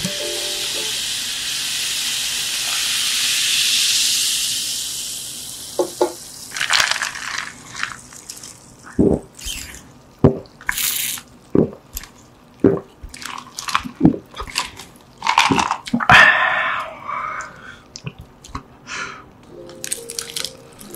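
Carbonated soda fizzing in a plastic cup just after pouring, a steady hiss that fades over about five seconds. Then sips through a straw and swallows, short separate gulps about one a second, with a longer slurp around sixteen seconds in.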